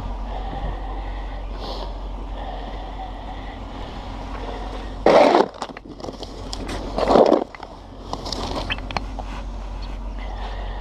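Snow shovel blade scraping over snow and pavement, two loud short scrapes about two seconds apart, over a steady background rush.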